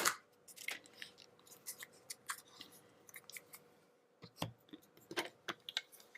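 Close, irregular small clicks, crackles and rustles of hands handling Play-Doh and its plastic tub and mold pieces, with a few sharper knocks about four and five seconds in.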